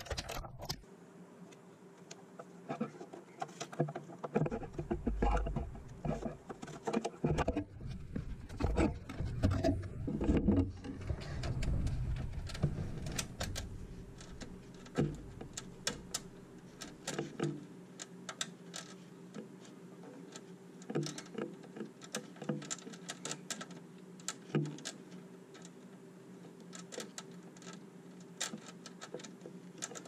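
Ratchet wrench clicking in irregular runs as a nut is tightened onto a mounting stud. Heavier knocks and handling noise come in the first half, over a low steady hum.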